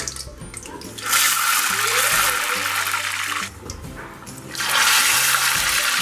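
Urad dal vadas dropped into hot oil for deep frying: a loud burst of sizzling and bubbling starts about a second in, eases off a little past halfway, then surges again as the second vada goes in. Faint background music underneath.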